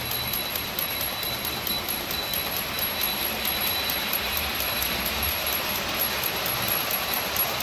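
Clockwork wind-up Santa figure ringing a small hand bell, with an even ticking of about five a second. An electric toy train rolls on the track behind, its running noise growing from about three seconds in.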